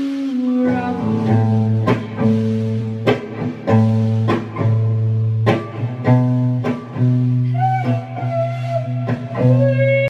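Electric guitar strumming chords, slow strums spaced about a second apart, each left to ring over a held low note.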